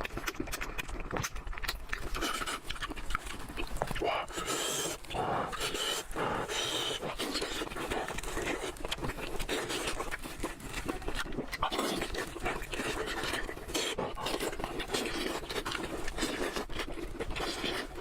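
Close-miked mouth sounds of someone eating: wet chewing and smacking, many small clicks in quick succession.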